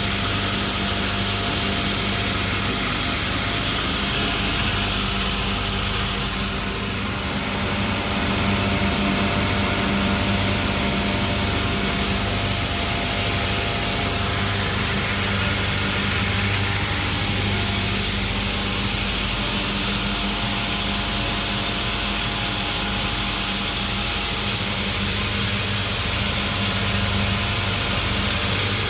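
Metal dryer for wet-separated copper granules running: its electric motors give a steady low hum under a constant airy hiss, with no change in pace.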